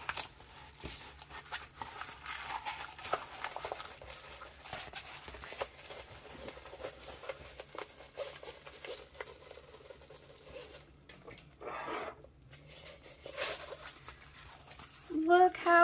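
A diamond painting canvas with its clear plastic film cover crinkling and rustling as it is rolled backwards by hand and unrolled again, to ease out the curl from shipping.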